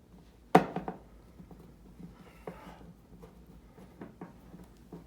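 Clicks and knocks from working on a space heater's casing while its long, fine-thread screws are turned out by hand: one sharp knock about half a second in with a short rattle after it, then lighter scattered clicks and a brief scrape.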